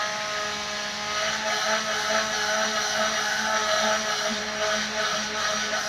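Tornador compressed-air cleaning gun running continuously, a loud, steady hiss of air with a steady whirring hum from its spinning nozzle tube.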